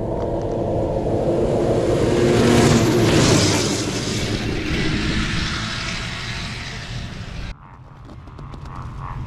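Race snowmobile engine pulling away from the starting line. The engine swells to a peak about three seconds in and then fades as the sled heads off down the trail. It cuts off abruptly near the end, leaving a quieter low rumble.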